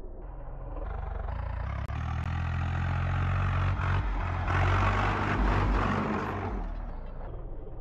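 Tractor's diesel engine pulling hard through sand, coming closer and passing close by: it grows louder to a peak about five seconds in, then fades as it moves away.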